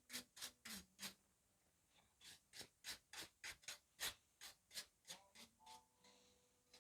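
Faint, quick scraping strokes, about three a second, as heat-treat clay is brushed off a steel knife blade, with a pause of about a second near the start.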